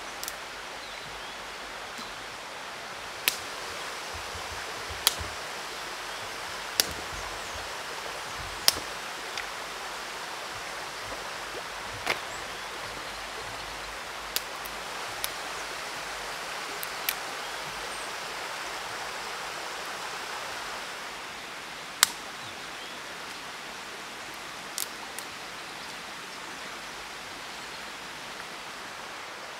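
Dry branches snapping sharply, about a dozen single cracks spaced a second or several apart, over the steady rush of a stream.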